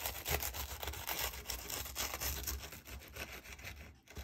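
Serrated knife sawing back and forth through a crisp grilled sandwich on a bamboo cutting board: a quick run of scratchy strokes as the blade cuts the toasted crust.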